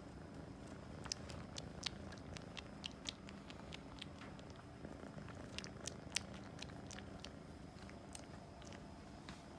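An American Shorthair kitten purring steadily while held, with irregular small sharp clicks over the purr.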